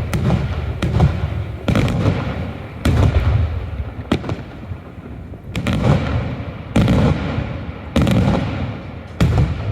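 Daylight fireworks display: shells bursting one after another, a sharp bang roughly every second to second and a half, each followed by a low rolling rumble.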